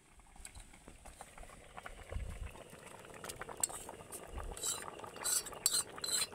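Pot of rice and lentil khichuri bubbling at a rolling boil, with many small pops. A metal spoon clinks against a steel bowl as spice paste is scraped into the pot, with sharp clinks growing busier from about halfway through.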